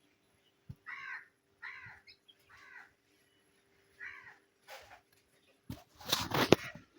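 A bird cawing four times in short, harsh calls, then a louder clatter about six seconds in.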